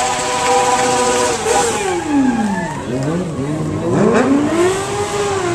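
Sportbike engine held steady at high revs, then the revs fall away sharply a second and a half in and climb again as the throttle is worked.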